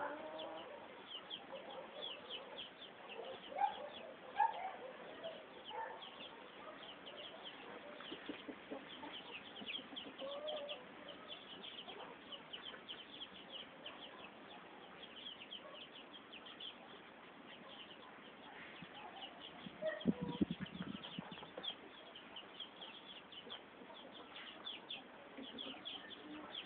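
A flock of three-week-old chicks peeping continuously: many short, high, falling peeps overlapping, with a few lower calls mixed in. A brief rustling thump about twenty seconds in.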